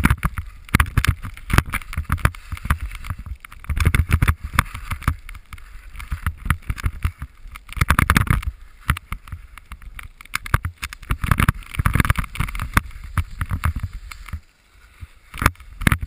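Skis sliding and scraping over packed snow, with wind buffeting a helmet-mounted camera's microphone. The rushing rises and falls in surges every few seconds, mixed with many sharp clicks and knocks.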